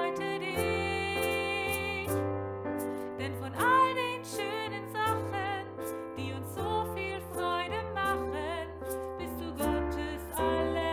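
Background music: a piano-led children's Christmas pop song playing on with a steady bass line.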